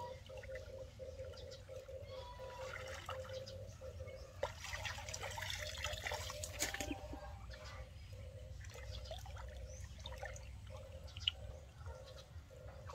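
Shallow muddy water sloshing and splashing as someone wades and works with his hands in it, busiest a few seconds in. A faint, evenly pulsing tone runs underneath.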